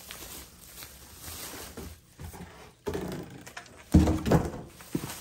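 Bubble wrap rustling as a wrapped frying pan is handled, with a few knocks and thumps; the loudest, a single thump, comes about four seconds in.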